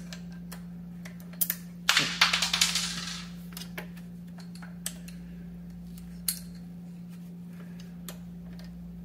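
Small metal parts clicking and clinking as spacers and a screwdriver shaft are worked into an electric scooter's rear suspension pivot. There is a quick run of rattling clicks about two seconds in, then a few single clicks, over a steady low hum.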